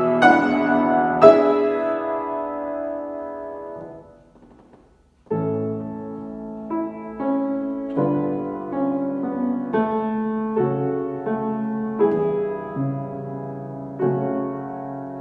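Piano playing a slow, lyrical piece: a chord rings out and fades away, a short pause about five seconds in, then a new phrase of sustained chords changing about once a second.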